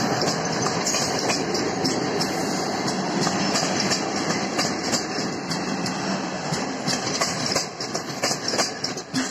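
Passenger coaches of an electric-hauled train rolling past on the track: a steady rumble of wheels on rails with scattered clicks, growing quieter after about seven seconds.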